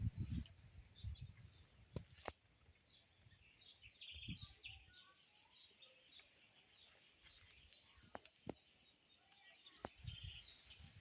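Faint chirping of several small birds, scattered short calls throughout, with a few sharp clicks and brief low thumps.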